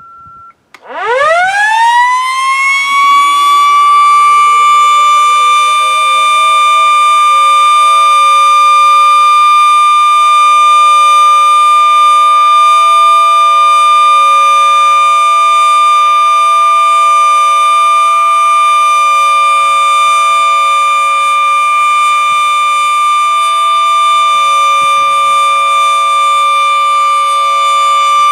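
Sentry F2 electromechanical tornado siren winding up from a standstill about a second in, its pitch rising steeply over two to three seconds and then holding one loud, steady high tone. A brief steady beep cuts off just before the wind-up begins.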